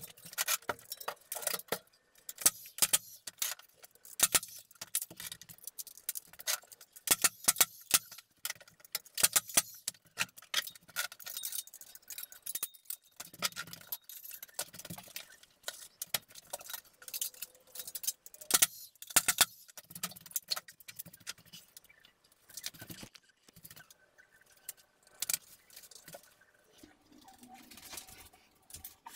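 Hand work on a drywall installation with metal parts: irregular sharp clicks and clinks throughout.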